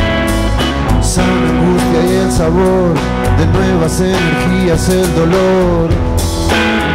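Rock band playing live: a repeated bending guitar melody over bass and drums.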